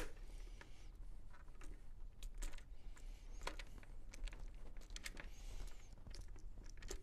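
Faint, scattered small clicks and rustles of a plastic chin-strap buckle and strap being handled and worked off the top post of a Xenith football helmet.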